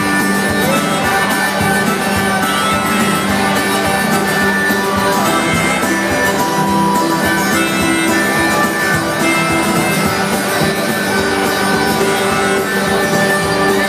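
Live acoustic guitar strumming with a harmonica playing a train-style instrumental break, held notes over a steady strum.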